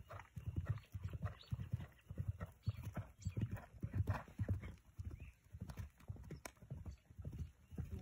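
A ridden horse's hoofbeats on grass: a quick, continuous run of dull thuds, several a second.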